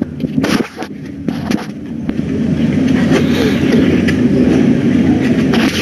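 Loud rumbling noise that builds up about two seconds in, with a few sharp knocks before it.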